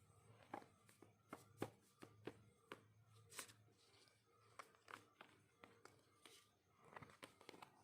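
Faint handling of packaging and printed merchandise: scattered light clicks and taps, with a couple of soft rustles about three and a half seconds in and near the end.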